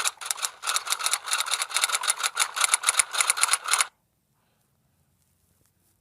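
Sound effect played back from a video: a rapid run of sharp mechanical clicks, about eight a second, for nearly four seconds, which stops abruptly.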